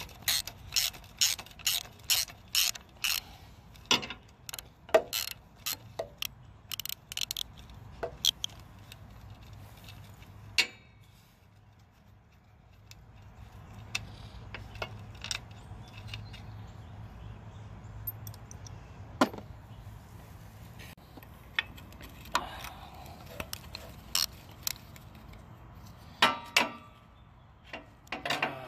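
Socket ratchet wrench clicking in quick runs of strokes with pauses between, as the bolts holding the go-kart's motor are worked loose.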